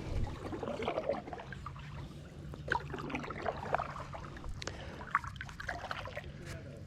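Water trickling and lightly splashing around a kayak on a creek, with scattered small drips and knocks.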